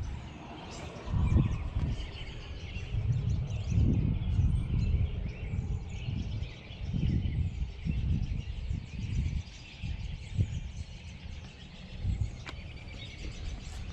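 Outdoor ambience: an irregular low rumble that comes and goes, the sound of wind buffeting the microphone, with faint birds chirping over it.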